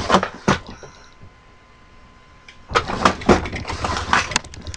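Rummaging through a drawer of tools and parts: knocks and rattling clatter of hard objects being shifted, pausing for a moment, then a run of quick, light, evenly spaced ticks near the end.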